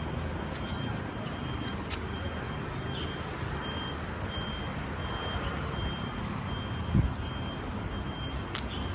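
A vehicle's reversing alarm beeping steadily about twice a second over a low engine rumble. A single thump about seven seconds in is the loudest sound.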